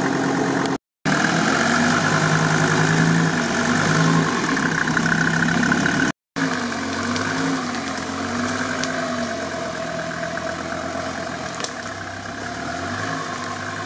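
Off-road prototype's engine running at low revs as it crawls along at walking pace, its pitch rising and falling a little with the throttle. The sound breaks off completely twice, briefly.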